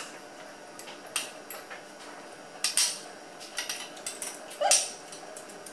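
A metal spoon and fork clinking and scraping against a ceramic plate, in several separate clinks, while fish is picked apart and eaten. Near the end there is a brief pitched sound that rises in pitch.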